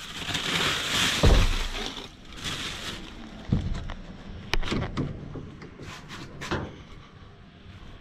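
Bags of produce rustling and shifting as someone rummages through a dumpster, with two dull thuds in the first few seconds and a few sharp clicks later, quieter near the end.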